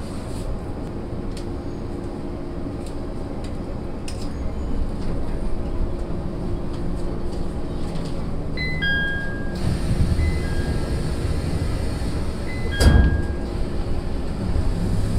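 Running sound inside a SAT721 series electric multiple unit: a steady motor and running hum with a few light clicks. About two-thirds of the way through come short electronic tones that step in pitch, then one loud thud near the end.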